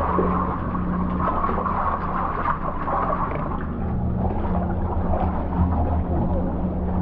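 Fishing boat machinery running with a steady low hum, under a constant wash of running, splashing water.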